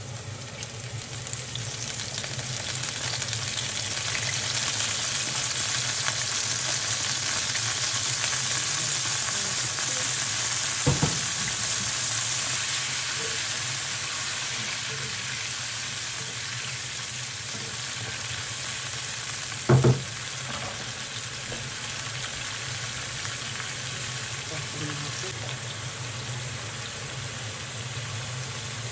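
Garlic and ginger sizzling in a non-stick frying pan as soy sauce and then orange juice go in and are stirred with a wooden spoon; the sizzle swells about two seconds in and eases off after the middle. Two short knocks, the louder about twenty seconds in.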